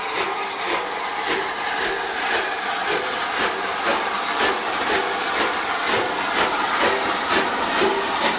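Rebuilt Bulleid Battle of Britain class Pacific 34053 'Sir Keith Park', a three-cylinder steam locomotive, working a train with a sharp exhaust beat about twice a second over a steady hiss of steam. It grows louder as it approaches.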